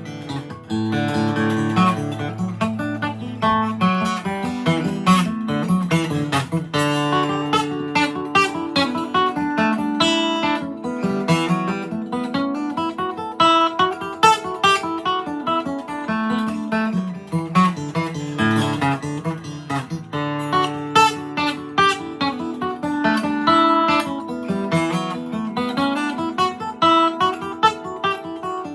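Gibson J-45 acoustic guitar playing a fast reel or hornpipe solo, a quick run of single picked melody notes over a moving bass line.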